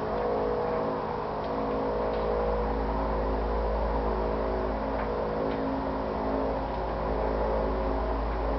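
A steady, droning hum from the sky, made of many sustained tones layered together over a deep low rumble. The recorder takes it for the sound of an unidentified craft.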